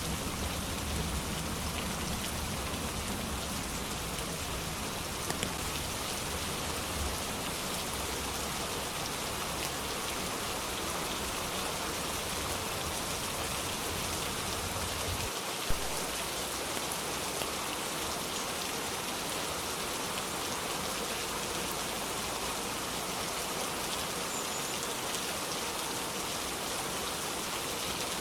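Steady rain falling in an even hiss of drops, with one brief sharp click a little past halfway.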